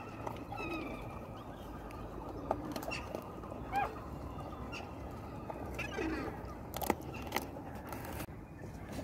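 Dogs eating bread scraps off a plastic sheet, with scattered sharp clicks and crunches of chewing over a steady outdoor background. Short bird chirps come and go throughout.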